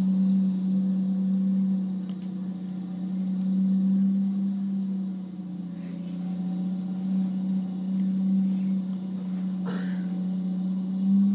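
Wheel loader with a front-mounted snowblower running steadily as it clears snow, a low drone that holds one pitch.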